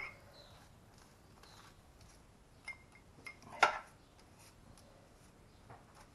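A few light clicks and knocks of a pastry brush against a small cup of beaten egg, with faint brushing strokes on the pastry in between. The loudest knock comes a little past halfway.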